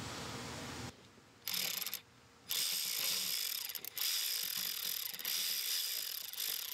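Hand ratchet clicking rapidly as the solenoid's hold-down bolt is run back in: a couple of short spells, then a longer steady run from about two and a half seconds in.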